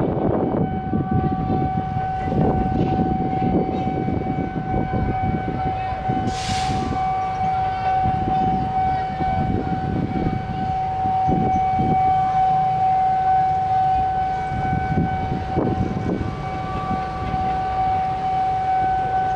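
Level-crossing warning siren sounding one unbroken steady tone, over the engines of passing motorcycles. A short hiss about six and a half seconds in.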